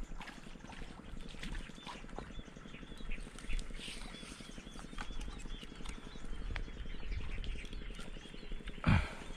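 Small chirping calls and light clicking rustles against an outdoor background. Near the end comes one sharp, loud pop: an air rifle fired down from a tree at mullet in the water.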